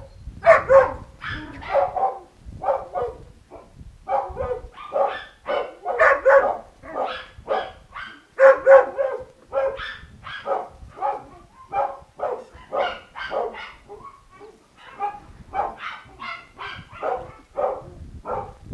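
Young dogs barking over and over, about two short barks a second without pause.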